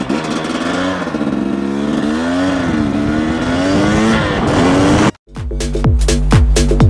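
KTM 300 EXC single-cylinder two-stroke engine revving up and down while ridden, its pitch rising and falling several times. It cuts off abruptly about five seconds in, and electronic music with a steady beat takes over.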